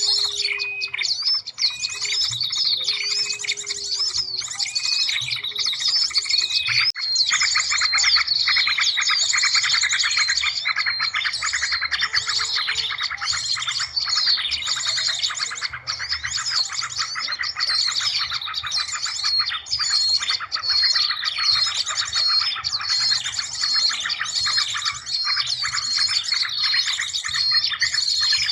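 Bird-luring call mix: a dense chorus of many small birds chirping and twittering rapidly. In the first several seconds a short whistled note repeats about once a second.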